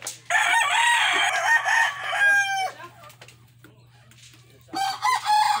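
A rooster crowing twice: one full crow just after the start, and a second crow beginning near the end.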